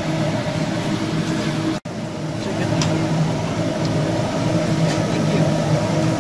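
Vegetables sizzling on a hot teppanyaki griddle over a steady hum and rush of restaurant ventilation, with a few faint light clicks. The sound cuts out for an instant about two seconds in.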